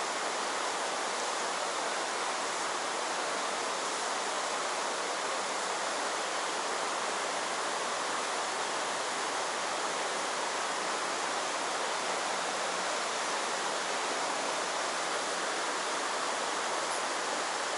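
Steady rush of a fast mountain stream running over rocks and riffles.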